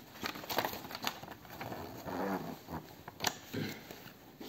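Paper instruction leaflet being unfolded and handled, rustling with a few sharp crackles.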